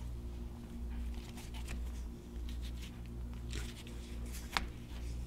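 A rubber boot being slid by hand along a thick welding cable onto its connector: faint rubbing and scuffing, with one sharp click about four and a half seconds in, over a steady low hum.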